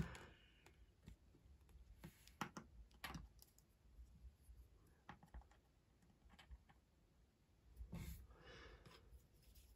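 Near silence with a few faint, scattered clicks and taps of plastic Lego pieces being handled and set down.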